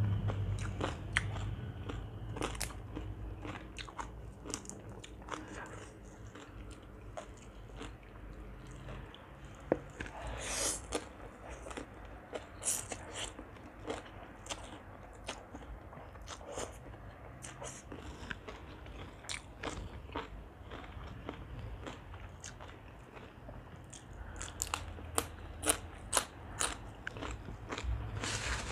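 Close-up eating sounds of green papaya salad with rice noodles: wet chewing and crunching of the shredded papaya, with sharp crunchy clicks and now and then a slurp of noodles.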